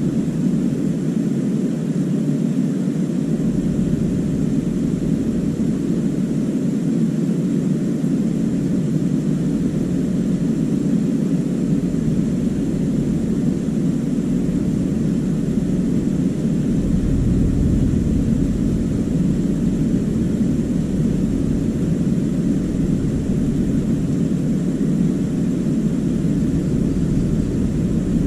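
A machine running with a steady low drone that does not let up; its deepest rumble grows a little stronger a bit past the halfway point.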